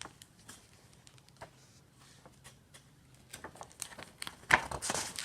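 Paper rustling and light handling clicks as a picture book's page is turned, with the loudest rustle about four and a half seconds in.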